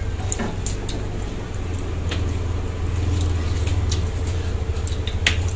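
Steamed mud crab being eaten by hand: a few sharp cracks and clicks of shell breaking, the loudest just before the end, with squishy sounds of the meat being pulled out and chewed. Underneath is a low rumble that grows in the second half and stops suddenly at the end.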